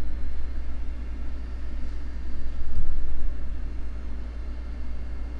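Steady low rumble with no clear source, swelling briefly about three seconds in, with a soft low thump near the swell.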